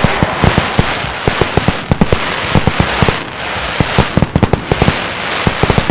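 Fireworks going off: a rapid, irregular string of sharp pops and bangs over a steady rushing haze, thinning briefly about three seconds in.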